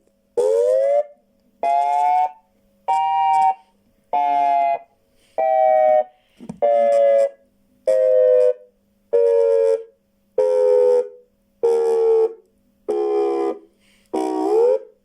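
Homemade electronic siren sounding a pulsed wail through old loudspeakers: about a dozen short blasts a little over a second apart. Their pitch climbs over the first few, sinks slowly through the middle and starts climbing again near the end.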